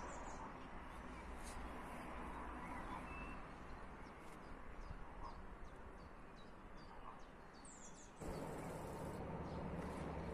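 Small birds chirping, short falling chirps repeating about twice a second over a steady low background hum. About eight seconds in, the background abruptly turns into a louder low hum.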